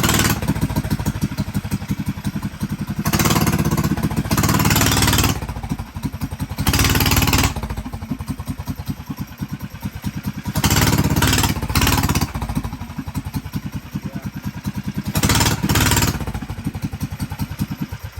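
Homemade mini bike's small engine running with a fast, even firing beat, revved up in about five short bursts between steadier running.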